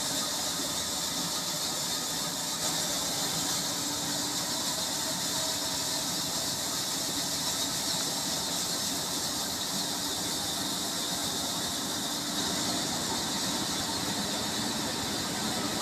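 42-inch band saw running steadily, a constant high-pitched hiss and squeal.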